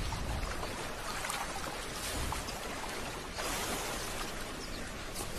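Water sloshing and splashing as African buffalo wade and drink at a waterhole, with a louder stretch of splashing about three and a half seconds in.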